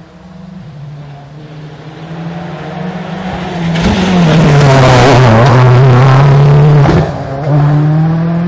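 Ford Focus rally car passing close at speed: the engine grows louder as it approaches, its revs drop about four seconds in as it comes past at its loudest, then it revs up again as it accelerates away.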